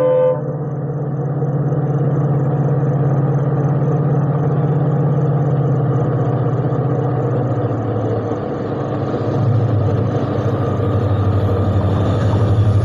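Diesel locomotive approaching a station with its engine running loudly and steadily; the last of its horn cuts off right at the start, the engine note drops lower partway through, and it grows louder as the train closes in.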